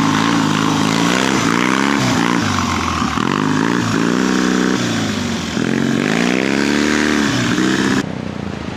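Triumph four-stroke parallel-twin trials motorcycle engine, the throttle opened and closed over and over so the pitch rises and falls every second or so. The engine sound cuts off abruptly near the end, leaving a quieter background.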